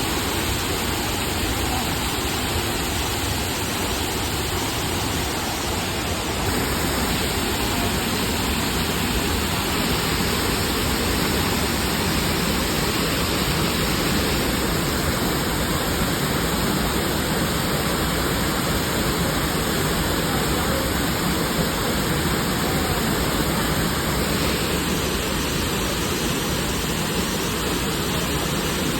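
Steady rushing noise of Burney Falls, a large waterfall, with its level and tone shifting slightly about six seconds in.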